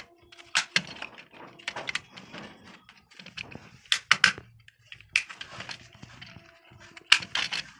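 Plastic switch modules being pressed and snapped into a white plastic modular switch-board plate. A series of sharp plastic clicks and rattles, the loudest about four seconds in and a cluster near the end.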